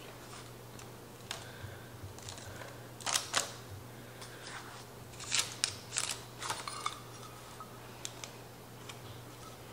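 Scattered soft clicks, taps and rustles at irregular moments as hands crumble streusel topping from a metal measuring cup onto a parchment-lined baking dish, over a steady low hum.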